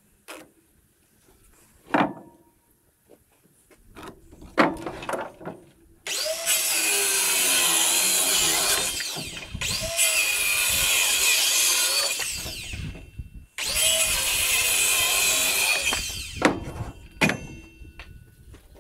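Handheld power saw cutting, in three runs of about three seconds each, its pitch wavering as the blade takes the load. Sharp knocks and clunks of tool handling come before and after the cuts.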